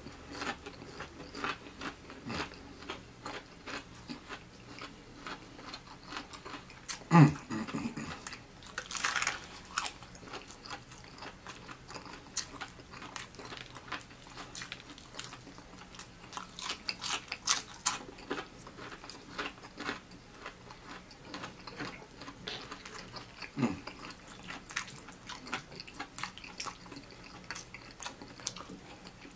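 Close-up chewing and biting of crispy fried chicken: the crunchy breading crackles again and again between wet chewing sounds, loudest around seven to nine seconds in.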